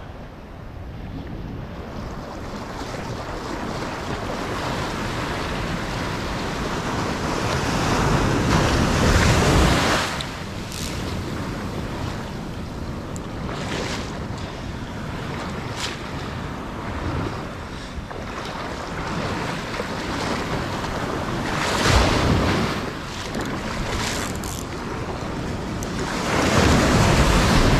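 Ocean water washing and splashing close to the microphone, with wind buffeting it. The wash swells louder a few times: about a third of the way in, about three-quarters of the way in, and near the end.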